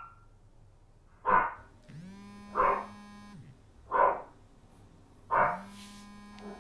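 A dog barks four times, single barks about a second and a half apart. Between the barks a mobile phone rings twice, each time with a steady buzzing tone lasting about a second and a half.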